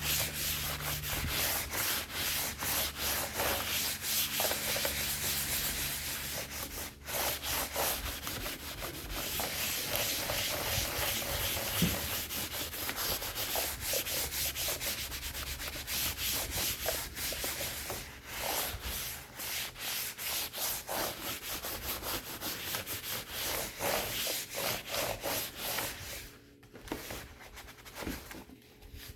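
Paper towel wiping and scrubbing an HP 255 G4 laptop's casing with WD-40 in quick back-and-forth strokes, easing off and going quieter for the last few seconds.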